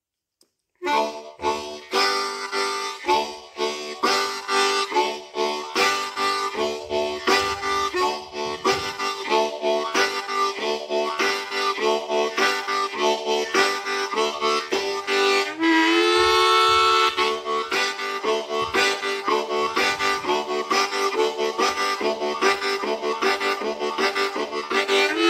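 Hohner Special 20 diatonic harmonica in G playing a steam-train imitation: rhythmic chugging chords start about a second in. About sixteen seconds in, the chugging gives way to a long chord that bends up in pitch and holds, then the chugging resumes.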